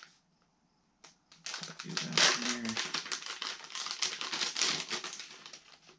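Plastic soft-bait bag crinkling and crackling as it is handled and turned over in the hands, starting about a second and a half in after a brief quiet moment.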